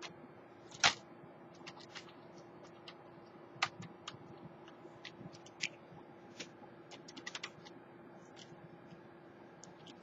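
Scattered light clicks and taps of hands working on an opened laptop motherboard, setting a processor into its socket. The loudest click is about a second in, with a quick run of small clicks around seven seconds, over a faint steady hum.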